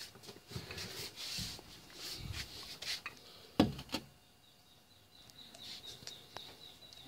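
Bumps and knocks from handling near the microphone, the sharpest about three and a half seconds in. Then a bird chirps in a fast, even run of high notes over the last couple of seconds.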